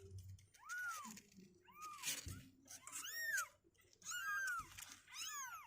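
Two-week-old kittens mewing: about five short, high calls, each rising then falling in pitch, roughly one a second.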